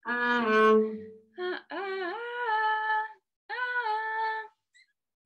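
Double bass played with the bow in three short phrases of high notes, the second and third sliding up into pitch before holding.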